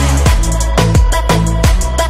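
Background electronic music with a fast, steady drum beat and deep bass.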